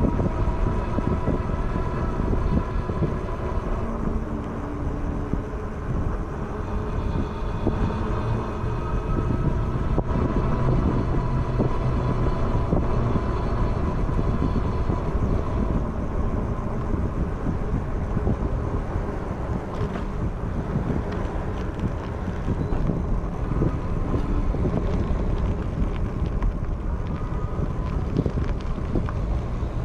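Road and traffic noise with wind rumbling on the microphone, heard from a moving e-bike on a busy street. A few light clicks come through in the second half.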